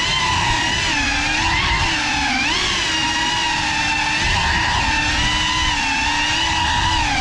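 Motors and propellers of a GEPRC FPV quadcopter running in flight: a steady, loud whine whose pitch wavers up and down with the throttle.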